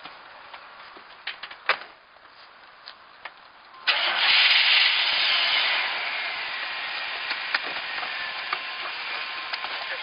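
A few clicks, then a car engine starting about four seconds in: loud at first, settling over a couple of seconds into a steady run.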